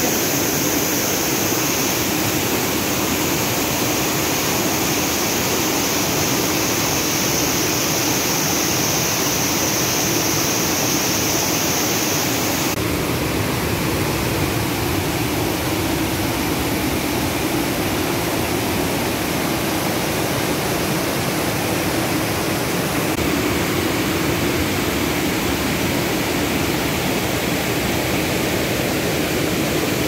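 A waterfall's white water rushing down smooth rock slabs, a steady loud rush with no let-up. Its hiss changes a little in tone twice.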